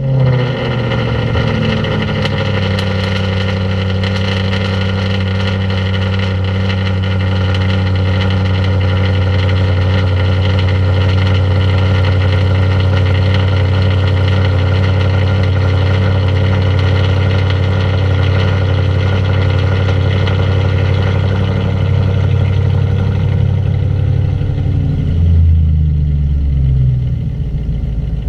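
Audi RS5 engine through an HMS aftermarket exhaust, just after start-up: the revs fall from the start-up flare in the first couple of seconds and settle into a steady idle. Near the end the idle note drops lower and wavers briefly.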